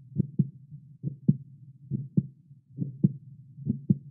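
Heartbeat sound effect: paired lub-dub thumps a little more than once a second over a low steady hum.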